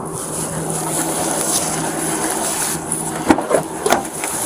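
Clothing rustling and rubbing close to a body-worn camera's microphone during a pat-down search, over a steady low hum, with two brief knocks a little after three seconds in.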